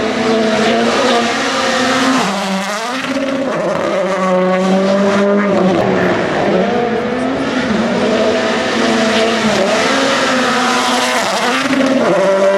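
Rally1 car's 1.6-litre turbocharged four-cylinder engine running at high revs, its pitch climbing and dropping several times as the driver works the throttle and gears through the stage.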